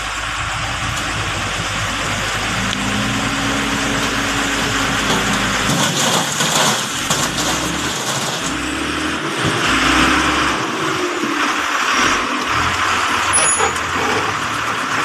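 Dump truck engine running as it raises its bed, and a load of rock and soil slides out with rattling and scraping of stones from about six seconds in.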